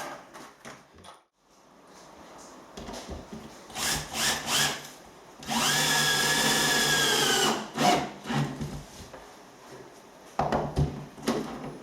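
Battery drill-driver winding up and running for about two seconds as it drives a screw into a plywood floor board, with handling knocks before and after.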